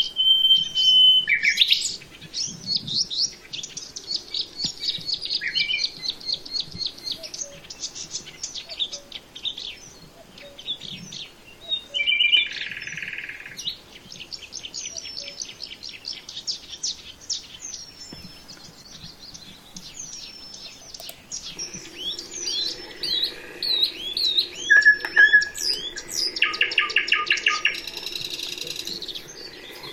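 Several songbirds singing and calling: quick runs of high chirps and trills, with a held whistled note at the start and a fast rattling trill near the end.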